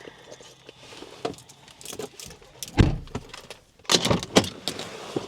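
Handling and movement noises: scattered clicks and rustles, one heavy thump about three seconds in, then a quick run of sharp knocks and rattles.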